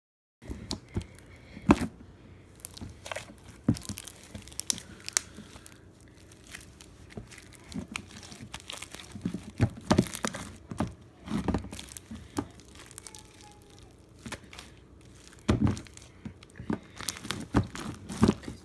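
Slime being squeezed and worked by hand, giving irregular crackling pops and clicks.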